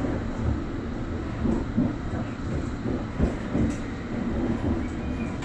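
London Underground District Line train: a steady low rumble with scattered irregular knocks.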